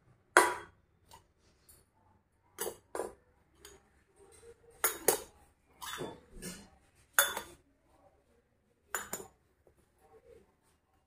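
Small kansa (bell-metal) bowls clinking and ringing against one another as one is lifted from the stack and set back in: a series of sharp metallic clinks, the loudest about half a second in.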